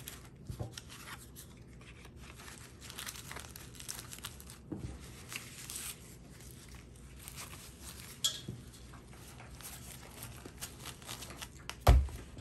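Soft rustling and scraping of a canvas wallet being folded closed by hand on a cloth-covered table, with a few light clicks and a dull thump near the end as it is pressed flat.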